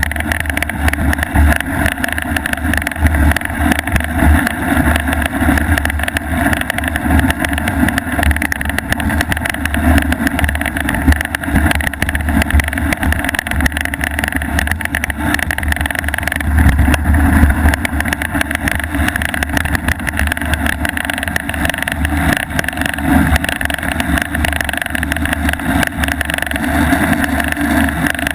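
Loud, continuous rattling buzz from a loose small part inside a fork-mounted action camera, shaken by the bicycle's ride over rough snow, with wind on the microphone.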